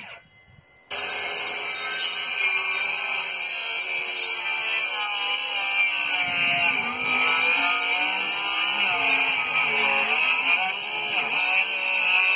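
Power saw cutting through 2x4 lumber, running loud and steady with a pitch that wavers up and down as it cuts. It stops briefly at the start and starts again about a second in.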